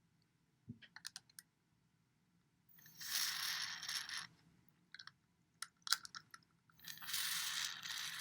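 Two short bursts of DeoxIT contact-cleaner aerosol spray, each hissing for about a second and a half, aimed onto a push-button's post to clean its dirty, noisy contacts. Small clicks come before and between the bursts.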